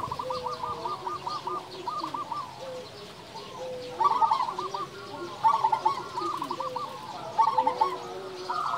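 Zebra doves (perkutut) cooing: quick runs of short, bubbling cooing notes, with louder runs about four, five and a half and seven and a half seconds in, over softer, lower drawn-out coos.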